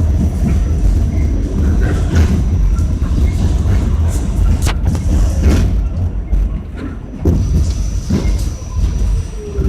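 R46 subway car running on the track, heard from inside the car: a steady low rumble of wheels on rail with several sharp clacks, and a falling whine near the end.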